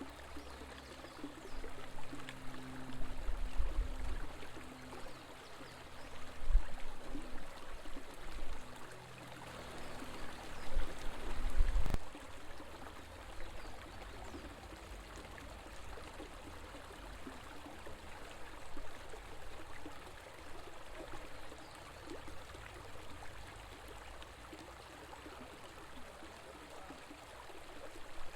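River water flowing with a steady rush. In the first twelve seconds low rumbles rise and fall several times, the loudest thing heard. They cut off suddenly about twelve seconds in, leaving only the flowing water.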